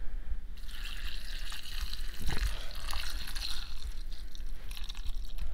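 Dark rum poured in a steady stream into a glass bowl of chopped dried fruit, trickling and splashing over the fruit, starting about half a second in.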